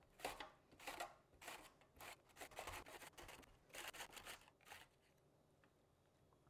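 Raw zucchini being pushed over a mandoline slicer's blade into thin slices: faint repeated scraping strokes, roughly one or two a second, which stop about five seconds in.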